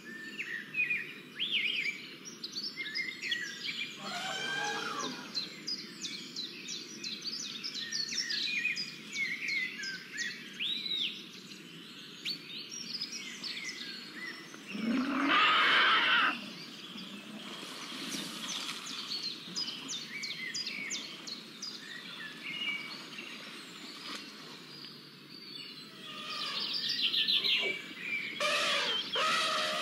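Many birds chirping and calling over steady background noise, with one louder call lasting about a second and a half roughly halfway through.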